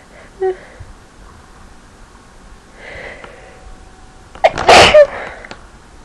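A person's induced sneeze: a breathy inhale about three seconds in, then one loud sneeze about four and a half seconds in.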